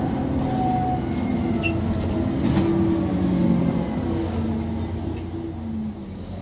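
Interior drone of an ADL Enviro400 double-decker bus under way: its Cummins ISB6.7 diesel engine and ZF Ecomat six-speed automatic gearbox running steadily, with tones that shift in pitch. The level dips near the end.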